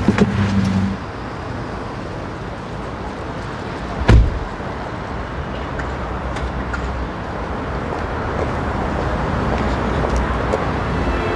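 A car door shuts once with a solid thud about four seconds in, over steady low car and street noise.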